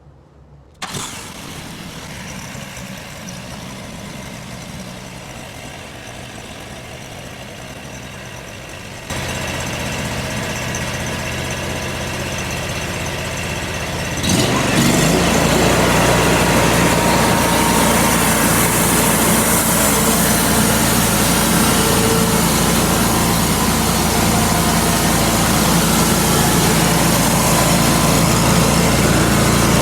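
Homemade sawmill's small gasoline engine starting about a second in and running, then speeding up in two steps, around nine seconds and again around fourteen seconds, to a loud steady run.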